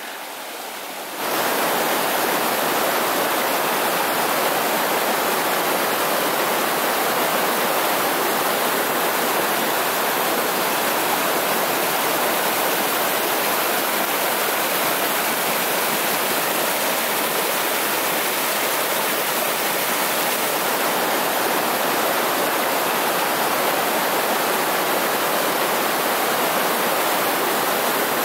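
Shallow mountain river rushing over boulders and cobbles in small rapids: a steady rush of water that comes in abruptly about a second in.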